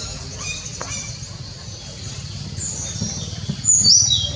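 High-pitched animal chirps and squeaks, growing louder near the end into whistled calls that step down in pitch, over a steady low rumble.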